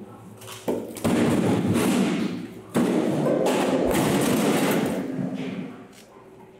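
Rock-hard frozen whole tuna being handled in bulk: three sudden heavy thuds in the first three seconds, each running on into a second or more of scraping noise as the fish tumble into a metal cage and are dragged across the floor, dying down near the end.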